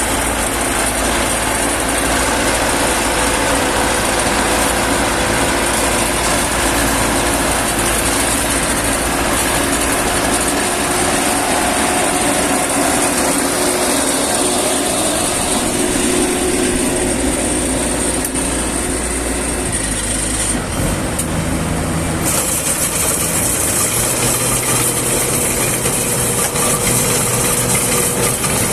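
Combine harvester running steadily in the field, a continuous engine and machinery drone; the sound shifts briefly about two-thirds of the way through.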